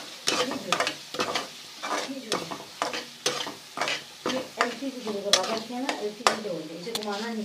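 Onion, ginger-garlic paste and ground spices frying in oil in a pan with a light sizzle, stirred with a utensil that scrapes the pan about two to three times a second.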